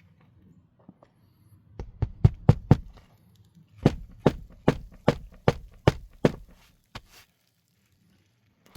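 A run of sharp knocks: a quick cluster of about five, then after a short pause about seven evenly spaced strikes, a little over two a second, and one last knock.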